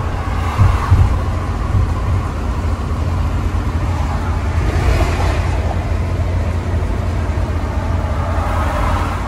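Semi truck on the highway heard from inside the cab: steady low rumble of engine and road noise, with a brief rise in hiss about five seconds in.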